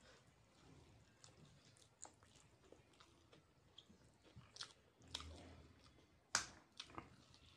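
Faint chewing of a mouthful of noodles, with soft wet mouth smacks and clicks. A sharper click comes about six seconds in as a piece of fried chicken lollipop is bitten.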